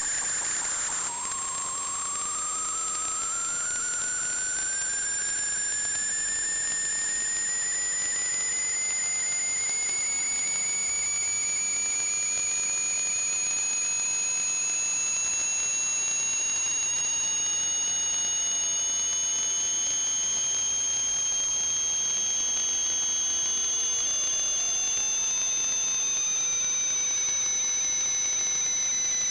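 Steady hiss with high whistling tones, one slowly rising in pitch and another slowly falling, running unbroken.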